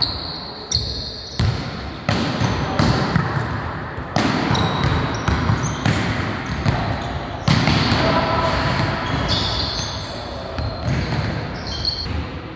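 A ball being struck and bouncing again and again in a sports hall, with a dozen or more sharp smacks at irregular intervals, each ringing out in a long hall echo.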